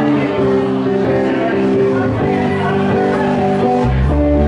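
Live rock band playing, electric guitars over drums. A deep low end comes in near the end.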